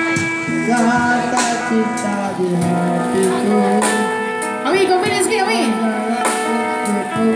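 A live street band plays guitars and a drum kit through a small PA: sustained chords with regular drum and cymbal hits. A voice comes in briefly over the music about five seconds in.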